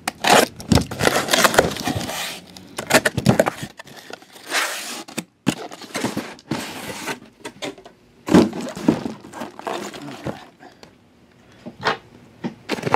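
Cardboard shipping case being opened by hand: packing tape torn and cardboard flaps and inner boxes scraping, rustling and knocking as they are pulled out and set down, in irregular bursts.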